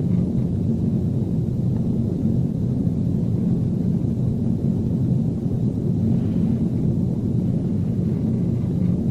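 Steady low rumbling drone of aircraft engine noise, with no distinct pitch and no change in level.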